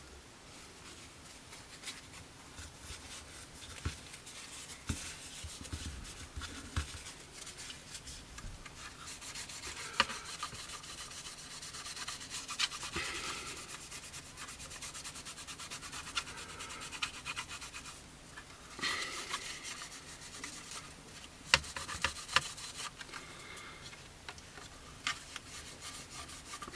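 Kitchen paper rubbing over the painted plastic underside of a 1/48 scale model aircraft, wiping off a dried weathering wash. It is a soft, dry scrubbing in spells, strongest through the middle, with a few sharp clicks as the plastic model is handled.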